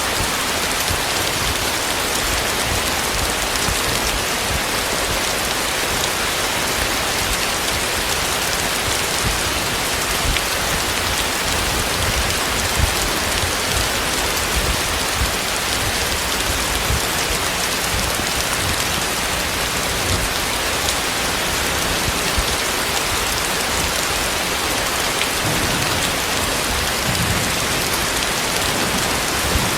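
Heavy rain falling steadily: a dense, even hiss of drops with small scattered drop hits.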